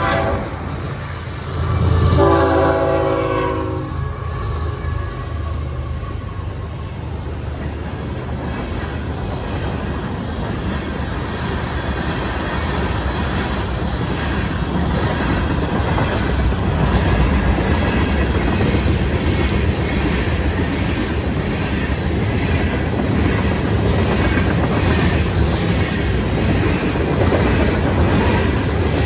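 Freight locomotive horn sounding one chord blast of about two seconds, followed by a long freight train of tank cars and covered hoppers rolling past, a steady rumble with the wheels clacking over the rail joints that slowly grows louder.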